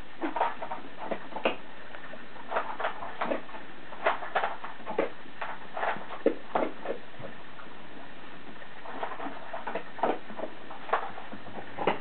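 Mother dog crunching dry food: irregular sharp cracks and crunches, two or three a second, thinning out for a couple of seconds past the middle.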